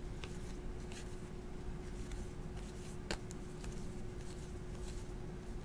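Glossy 2016 Platinum baseball cards being slid one by one off a stack by hand: faint rustling and small ticks of card stock, with one sharper click about three seconds in.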